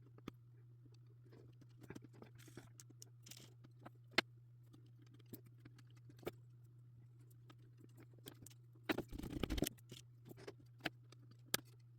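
Faint scattered clicks and small rustles of jumper wires being handled and pushed into a solderless breadboard, with a busier patch of handling about nine seconds in. A steady low hum lies underneath.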